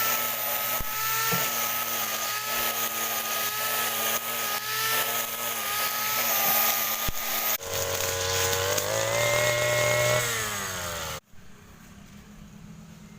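Grass trimmer motor running steadily at speed. About seven and a half seconds in it breaks off into a second run that rises in pitch, holds, then winds down over about a second and cuts off.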